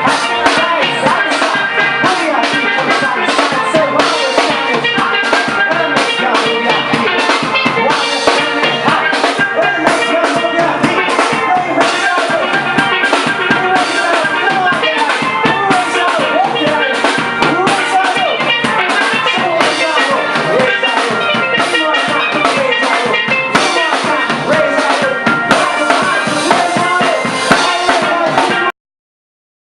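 Steel drum music over a steady drum-kit beat, which cuts off abruptly near the end.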